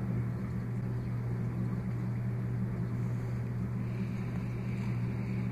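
A steady low hum with no change in level and nothing else standing out.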